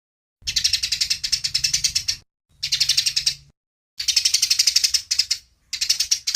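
Songbird trilling: four bursts of fast, evenly repeated high notes, each lasting a second or two, with short pauses between them.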